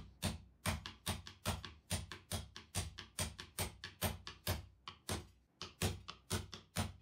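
A hammer striking the head of a steel pin, driving it down into a plywood pivot arm: steady sharp blows, about two a second, that stop near the end.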